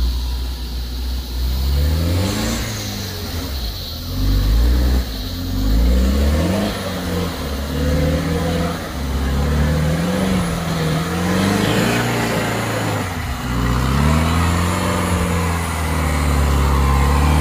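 Off-road 4x4's engine revving up and dropping back again and again under load, its pitch rising and falling every second or two.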